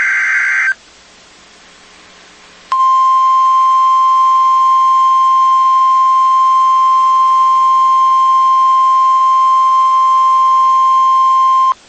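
NOAA Weather Radio emergency alert signal. A short burst of data tones ends, then comes about two seconds of faint hiss. A loud, steady single-pitched warning alarm tone then sounds for about nine seconds and cuts off abruptly.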